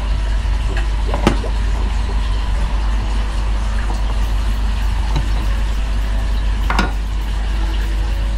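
Steady background hiss with a constant low hum, broken by two light knocks as things are handled on a wooden workbench, about a second in and again near the end.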